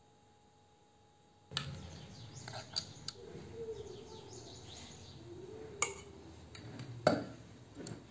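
A metal spoon clinks and knocks against a stainless-steel pot a few times as food is spooned onto raw spiced chicken pieces; the loudest knock comes near the end. Faint chirping runs in the background.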